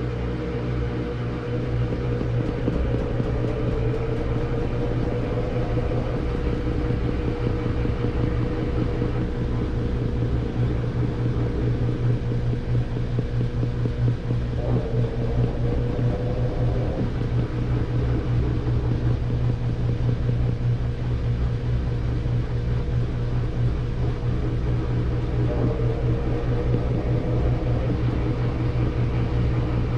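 Samsung front-loading washing machine in its spin cycle: a steady motor hum with a higher whine that wavers slightly in pitch a few times.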